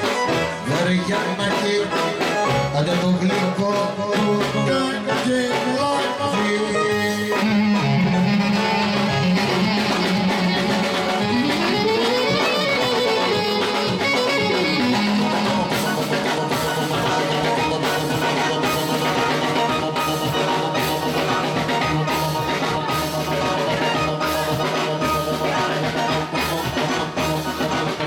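Live Greek folk dance music: a clarinet carries an ornamented, gliding melody over electronic keyboard and drum kit. About halfway through, a steady, even drum beat becomes more prominent.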